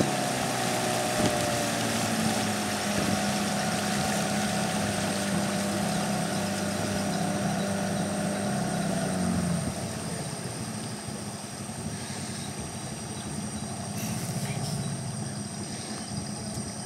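Riverboat engine idling with a steady low hum, which turns quieter a little under ten seconds in.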